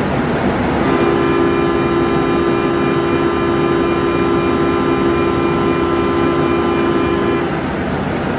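A steady electronic departure buzzer sounds on the underground platform for about six and a half seconds, starting about a second in and cutting off cleanly, over a constant background hum of the station and the waiting train.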